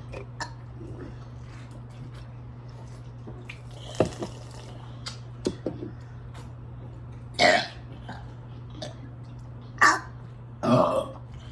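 People burping in turn: three short burps in the second half, the last one longer and deeper. A sharp knock comes a little before them.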